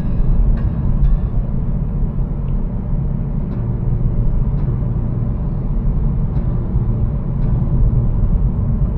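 Kia Cerato 2.0 on the move: a steady low rumble of road and running noise.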